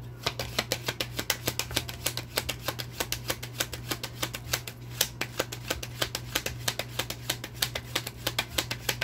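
A tarot deck being shuffled by hand: a fast, uneven run of crisp card snaps, several a second, over a steady low hum.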